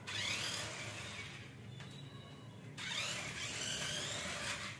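Small electric drive motor of a remote-control toy car whining as the car drives, in two runs. Each run rises in pitch as the car speeds up: one at the start and a second about three seconds in that cuts off near the end.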